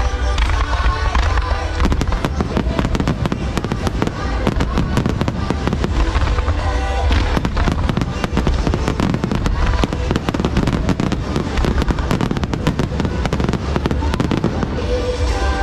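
A dense fireworks barrage of rapid bangs and crackling that starts about two seconds in and runs until near the end. Loud music with heavy bass plays underneath.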